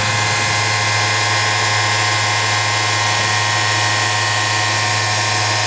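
Fadal 4020 CNC vertical machining center running with its spindle turning at a constant speed: a steady hum under a layer of fixed high whining tones that does not change.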